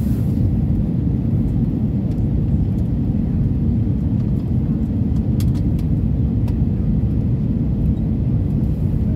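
Steady low rumble of cabin noise inside an Airbus A320neo airliner, with a faint steady hum over it and a few faint ticks about halfway through.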